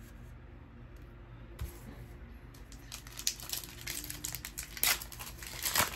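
Crinkling and rustling of a foil Pokémon booster pack wrapper being handled, starting about halfway through as a run of small irregular crackles that grows louder toward the end.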